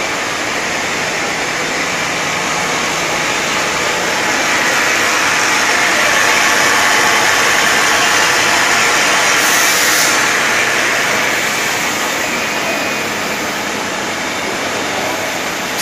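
Bottle filling and capping line running: a steady mechanical rushing noise from its motors, conveyors and cap sorter, growing somewhat louder through the middle and easing off again.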